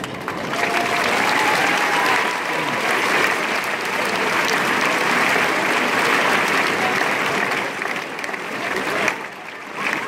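Audience applauding, dying down about nine seconds in.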